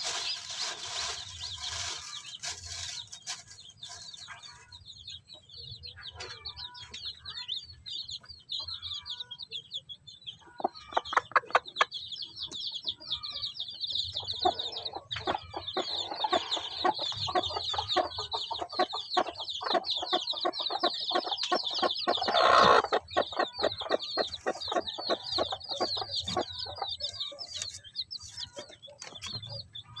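Newly hatched native chicks peeping rapidly and without pause, high-pitched, while the mother hen clucks among them. One louder, drawn-out call stands out about two-thirds of the way through.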